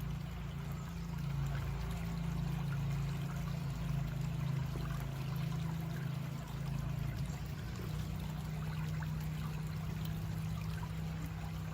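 Creek water flowing and trickling steadily, under a strong steady low rumble.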